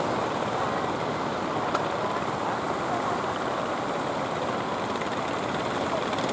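Steady rushing noise of a motor fishing boat under way: its engine running under a wash of water churned along the hull.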